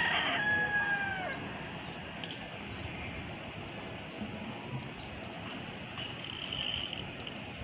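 A rooster crowing, its call ending in a long held note that falls away about a second and a half in. A bird repeats a short rising chirp about every second and a half.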